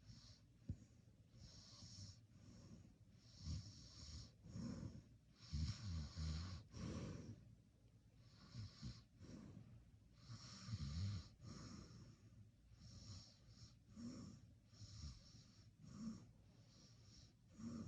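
A sleeping person breathing noisily and snoring, faint overall, with irregular breaths and two stronger snores about six and eleven seconds in.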